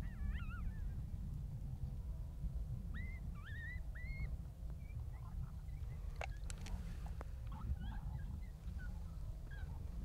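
Steady low wind rumble on the microphone, with a few faint, short high calls that rise in pitch near the start and again about three seconds in, and a few sharp clicks around six to seven seconds in.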